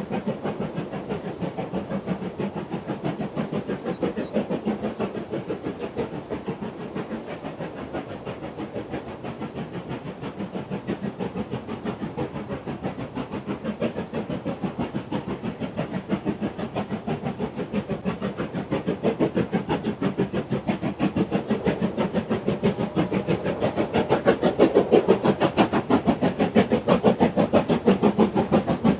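Preserved mainline steam locomotive working hard up a steep gradient: its exhaust beats come in a rapid, even rhythm and grow louder as it approaches, loudest near the end.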